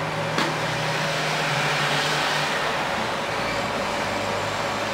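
Steady rushing background noise with a low hum underneath, swelling slightly about two seconds in.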